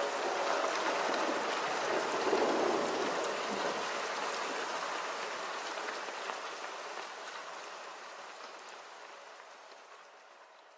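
Rain sound effect: a steady hiss of falling rain with faint scattered drops, slowly fading away.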